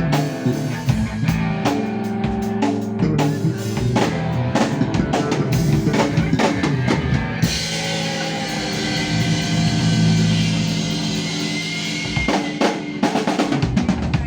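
A band playing: a drum kit with bass and sustained chords. A long cymbal wash starts about halfway through, then a run of drum hits comes near the end.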